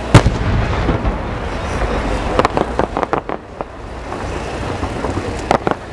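An aerial firework shell bursts with a sharp bang just after the start. Several smaller sharp pops follow, about two and a half seconds in and again near the end, over a low steady rumble.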